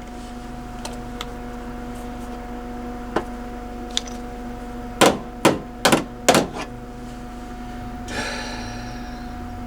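Four sharp hammer blows on sheet metal in quick succession, about half a second apart, over a steady low hum. A few faint taps come before them, and a brief scrape follows near the end.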